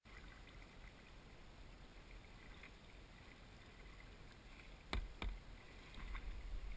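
Kayak moving on river water: a faint, steady wash of water and paddling around the hull, with two sharp knocks close together about five seconds in.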